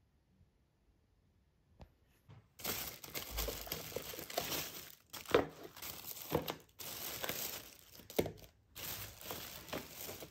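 Crinkling and rustling of packaging being handled, an irregular crackle with many small clicks that begins about two and a half seconds in.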